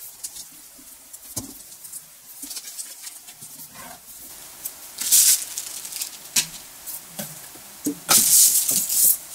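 Cardboard box being opened and its packing handled: scattered clicks and light rustling, with two louder scraping rustles, one about five seconds in and a longer one near the end.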